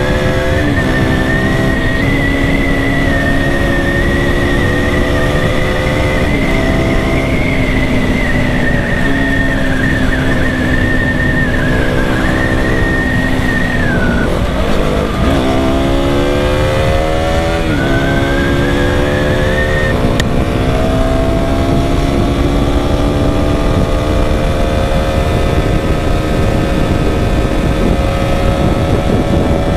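KTM Duke motorcycle's single-cylinder engine pulling hard at speed with wind rush on the microphone. The engine note steps down at several gear changes in the first half, dips and climbs again near the middle, then rises steadily as the bike accelerates. A thin high whine runs above the engine through the first half.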